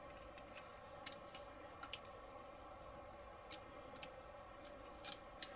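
Faint, irregular small clicks and ticks of 1:8 scale model wire-spoke wheel parts being pried apart by hand and with a small tool, over a faint steady hum.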